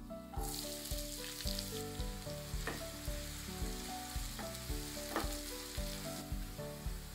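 Chopped onions sizzling as they hit hot oil in a nonstick pan, then frying with a steady sizzle while being stirred with a wooden spatula. Background music with a steady beat plays underneath.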